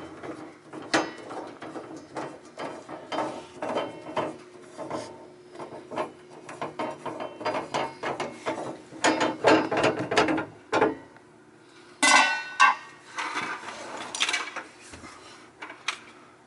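Metal clicking, clinking and rattling from hand tools and parts being worked under a SawStop table saw, with a short squeak about 12 seconds in.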